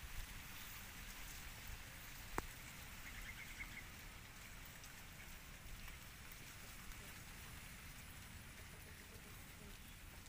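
Faint wet lapping and smacking as two baby monkeys eat milky food from a plastic plate, with one sharp click about two seconds in.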